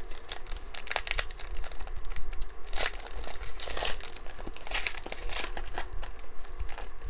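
Foil wrapper of a trading-card pack crinkling and tearing as it is ripped open by hand, with a run of sharp crackles and a few louder rips.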